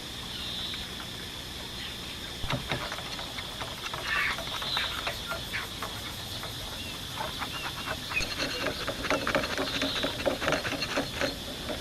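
Bamboo being worked by hand: irregular sharp clicks and taps that start a couple of seconds in and come thicker near the end. Behind them runs a steady high insect drone.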